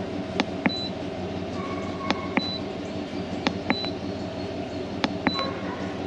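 Buttons on a portable 12 V refrigerator's control panel pressed four times, about every second and a half, each press a double click followed by a short high beep, as the cooling mode is changed from eco to max.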